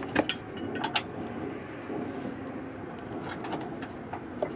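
Two sharp metal clicks about a second apart, then a few fainter ticks, as a steel plow-mount bracket and bolt are worked into line against a truck frame. Cloth rustles close to the microphone throughout.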